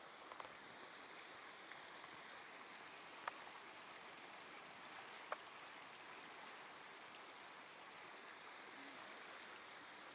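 Small creek flowing: a faint, steady rush of water. Two short, sharp ticks, about two seconds apart, stand out near the middle.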